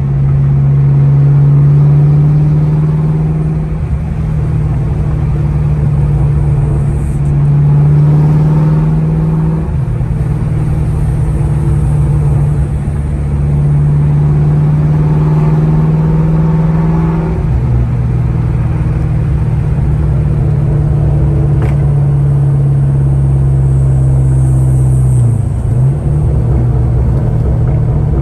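Car engine heard from inside the cabin while driving: a loud, steady low drone that swells under acceleration a couple of times and drops in pitch between gears.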